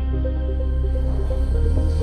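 Background music with a steady bass and a short repeating melodic figure.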